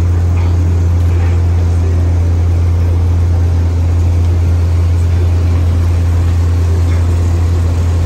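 Heavy diesel machinery running at a steady speed: a loud, even low drone from the engines of a concrete truck mixer and a rotary piling rig.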